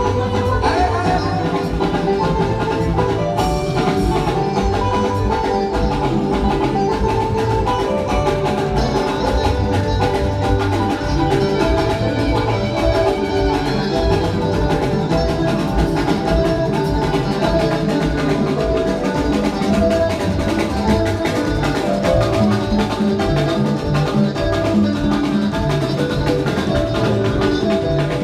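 Upbeat instrumental band music with a steady drum beat and melodic instrument lines, playing without a break.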